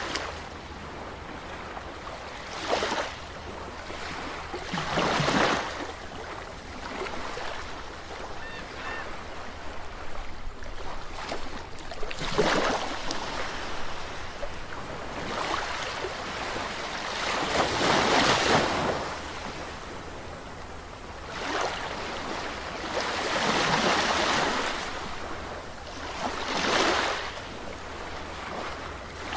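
Sea waves breaking on a sandy shore, the surf swelling and falling away again every few seconds, with the loudest swells about five and eighteen seconds in.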